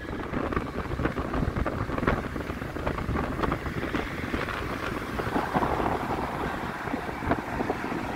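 A moving bus: a steady rumble of engine and road noise with frequent short rattles, and wind buffeting the microphone.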